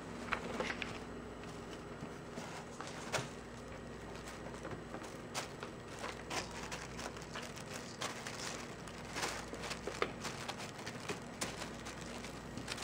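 Small kitten scrambling about in a cardboard box lined with tissue paper: scattered light scratches, taps and paper rustles from its paws, over a faint steady low hum.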